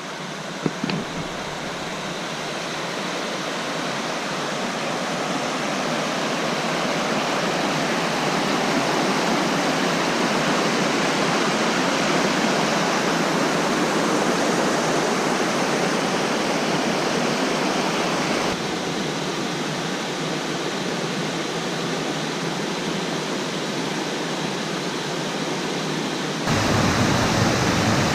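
Steady rush of flowing water, growing louder over the first several seconds. The sound changes abruptly twice, once a little past the middle and again near the end.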